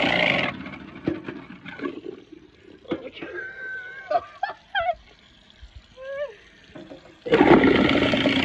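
A 3/4 horsepower kitchen garbage disposal running on chunks of ice with water, cutting off about half a second in. A few seconds of quieter clicks and knocks follow, then the disposal starts up again near the end.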